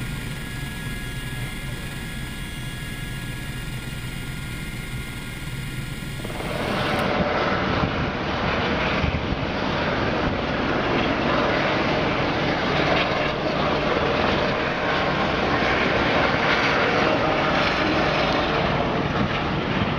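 Eurocopter EC120 Colibri helicopter heard from inside the cockpit in flight: a steady turbine whine with several fixed high tones. About six seconds in, the sound changes abruptly to a louder, rougher, even noise of EC120 helicopters flying past in formation, heard from the ground.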